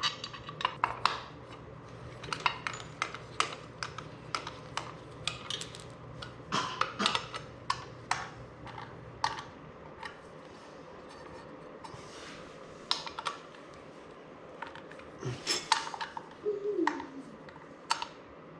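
Irregular metallic clinks and clicks of hand tools and metal parts as a JB Weld-repaired part is fitted back onto a mini bike. A low steady hum stops about nine seconds in.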